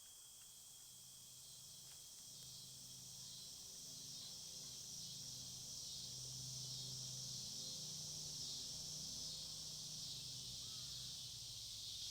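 Faint steady chorus of night insects in a high continuous band, growing slightly louder over the first few seconds, with a faint low hum underneath.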